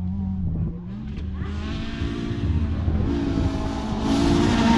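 Rally car engine approaching on a special stage, its note stepping up and down through several gear changes and growing louder toward the end.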